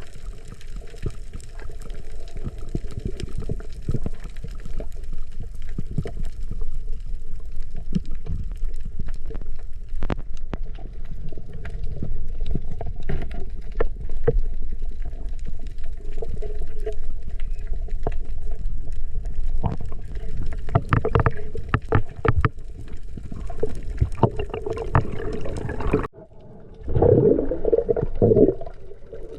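Water moving and gurgling around a camera, as heard from a waterproof action camera underwater, with many small scattered clicks. About 26 s in the sound cuts out briefly, then returns with a loud low gurgling for a couple of seconds.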